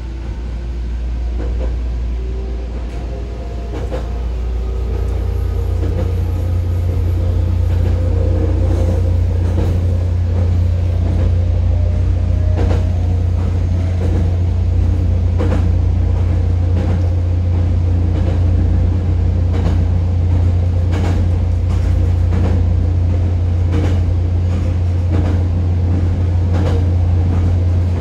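JR Kyushu 819 series DENCHA electric train heard from inside the car while running, with a loud, steady low rumble. Over the first several seconds a faint motor whine rises in pitch as the train picks up speed. After that, clicks of the wheels passing over rail joints repeat.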